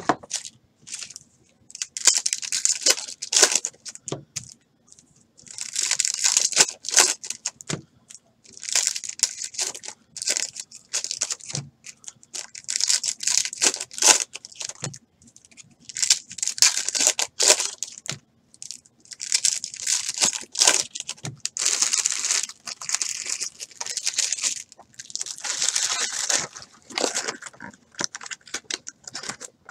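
Trading card packs being torn open by hand: repeated bursts of wrapper tearing and crinkling, every two to three seconds, with short quiet gaps between.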